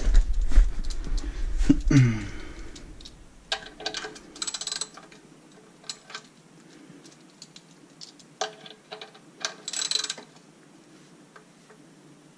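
Low rumbling and knocks of close movement, then two short runs of quick metallic clicking from a ratchet wrench as the radiator drain cap under the car is snugged down by hand.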